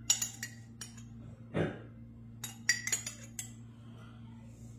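A metal spoon clinking against the rim of a glass salsa jar in scattered sharp taps, a cluster of them in the second half, as salsa is scooped out. A duller falling sound about one and a half seconds in, over a low steady hum.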